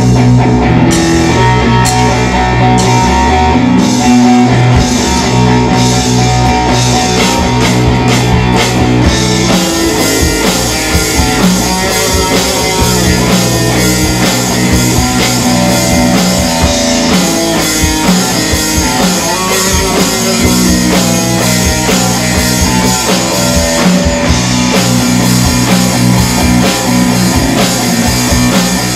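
Instrumental rock played by a trio of bass guitar, drum kit and electric guitar, with no singing. About ten seconds in, the sound gets fuller and brighter as the drums fill in the high end.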